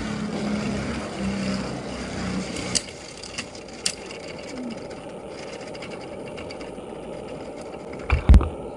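Lost Longinus Beyblade spinning top whirring and rattling as it spins on a stadium floor, with a few light clicks midway and two loud thumps near the end.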